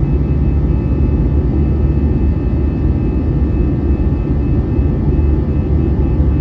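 Steady low rumble of an Airbus A320 in flight, its engines and airflow heard from inside the cabin, with a few faint steady tones above the rumble.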